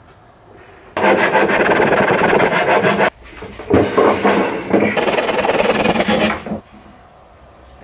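Japanese pull saw cutting through a pallet-wood board by hand: two long bouts of rapid rasping strokes with a short pause between.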